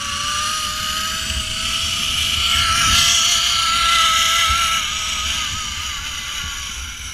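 Zipline trolley pulleys running along a steel cable: a steady whine that rises slowly in pitch over rushing wind. It grows louder toward the middle and fades as the rider slows near the end.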